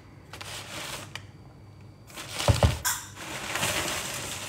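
Kitchen handling noises: two heavy knocks about halfway through, then a rustling, as things on the counter are moved about.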